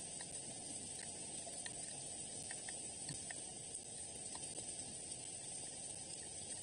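Steady hiss of rain falling, with faint scattered ticks of drops.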